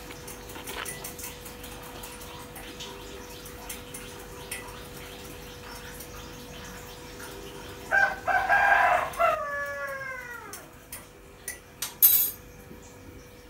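A rooster crows once, loud and about two seconds long, its last note drawn out and falling away. A few sharp clinks follow near the end, over a faint steady hum and quiet clatter at the sink.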